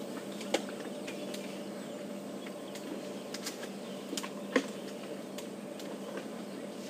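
Elephants feeding at a fallen marula tree: scattered sharp snaps and cracks of branches being broken and stripped, the loudest about half a second and four and a half seconds in, over a steady low hum.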